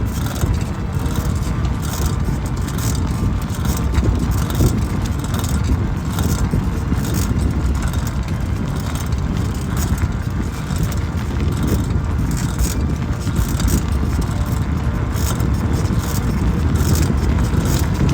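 Steady low rush of wind buffeting the microphone while moving along a paved trail, with tyre rumble and light rattling.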